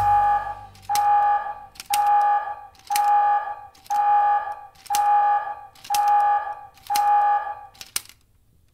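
Electronic alarm beeping eight times, about once a second, each beep a steady mid-pitched tone lasting most of a second, counting down the last seconds to zero on a 3D-printed split flap display. A sharp click, a flap falling as the digit changes, starts each beep.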